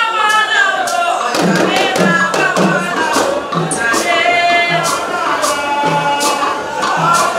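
Music: singing over a steady drum beat, with sharp percussion hits at a regular pace.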